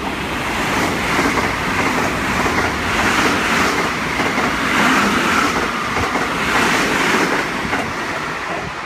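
JR West 223-series electric multiple-unit train passing through the station at high speed without stopping: a loud, steady rush of wheels on rail and air, with a quick regular clatter of wheels over the track in the middle, easing off near the end.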